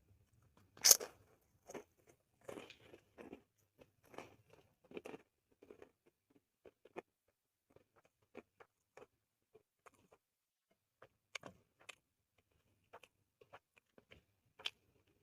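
A person eating close to the microphone: one loud crunchy bite about a second in, then wet chewing with scattered mouth clicks and small crunches, and another sharp crunch near the end.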